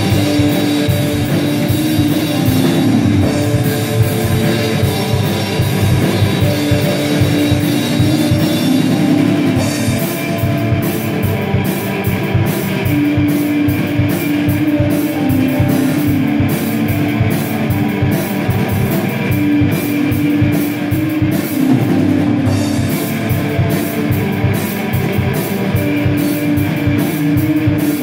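A live band playing an instrumental passage: drum kit, electric guitar, saxophone and keyboard, with long held notes over a steady drum beat. Sharp cymbal strikes come in about a third of the way through.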